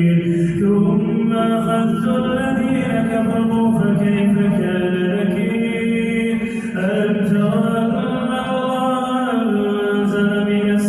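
Solo male voice reciting the Quran in a slow, melodic chant, drawing out long held notes that slide between pitches, with a short break about six and a half seconds in.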